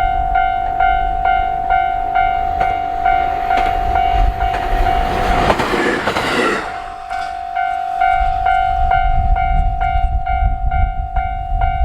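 Japanese level-crossing alarm ringing its electronic bell about twice a second over the low rumble of a JR Hokkaido H100 diesel-electric railcar. About halfway through, a loud rush of noise briefly drowns out the bell as the railcar reaches the crossing, and the bell then carries on.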